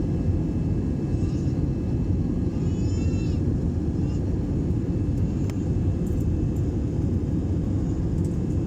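Airplane jet engine noise: a steady, even low rumble with no change in level.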